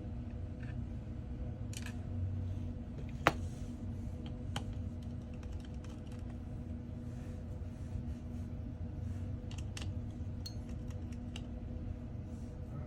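Scattered small clicks and taps of hand tools on iPhone 14 parts during disassembly, with one sharp click about three seconds in, over a steady low hum.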